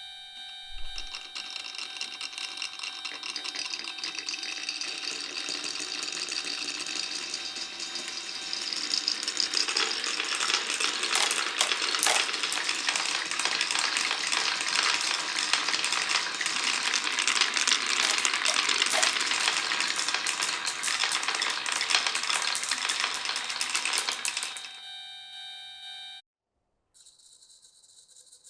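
Many glass marbles rolling and clattering down a wooden marble run in a dense stream of clicks and rattles. The clatter builds up about a third of the way in and stops abruptly near the end, with a steady tone underneath.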